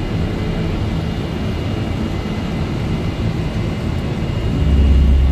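Boeing 747-400 cockpit noise at takeoff: a steady rush of engine and airflow noise from the four engines at takeoff thrust. A deeper low rumble swells about four and a half seconds in.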